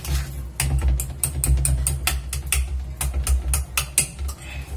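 Wire whisk beating cake batter in a stainless steel bowl: rapid clicking and clinking of the wires against the metal, about five strikes a second.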